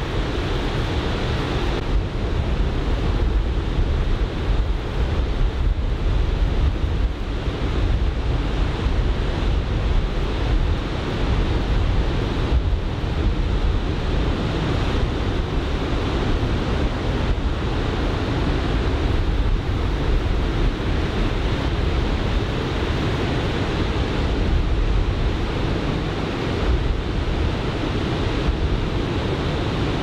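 Choppy onshore surf breaking on the beach in a steady rush, with wind buffeting the microphone.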